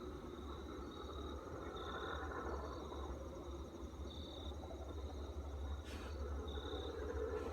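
Crickets chirping in short high pulses, about one a second, over a steady low hum and rumble; a single sharp click about six seconds in.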